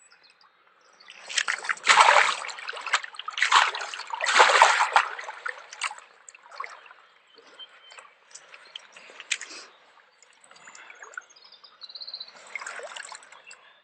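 Water splashing and trickling while a freshly landed carp is handled: two louder splashes in the first five seconds, then smaller splashes and drips.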